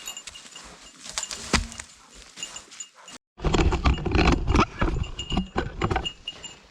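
Footsteps crunching over frozen ground in the woods, with a small bell jingling on and off. After a short break about three seconds in, the crunching is louder and closer for a few seconds.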